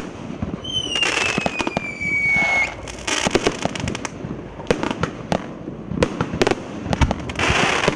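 A 200-gram consumer firework cake firing its shots: a run of sharp launch thumps and bursts with crackling. About a second in, a whistle falls slowly in pitch for nearly two seconds, and a rushing hiss comes near the end.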